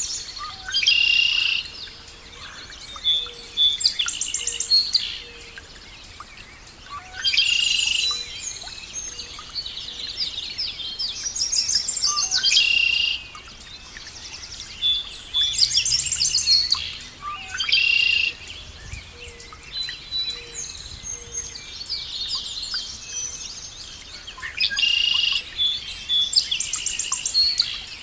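A songbird singing: bursts of quick, high chirps and trills, each phrase a second or two long, repeated every few seconds with short pauses.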